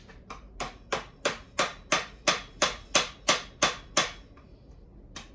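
Rapid hammer blows during the teardown of a two-stroke ATV, about three a second, a dozen or so in a row, stopping about four seconds in.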